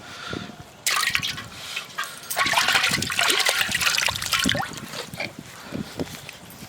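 Water splashing in the canal in two noisy bursts, the second longer, then smaller splashes and drips.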